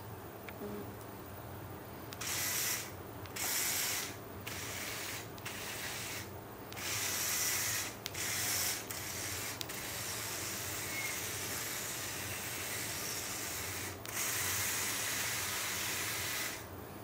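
Two LEGO motors driving a small wheeled robot, a geared whirring hiss that starts and stops as the robot is driven by remote-control commands: short bursts over the first nine seconds, then two longer runs of several seconds each.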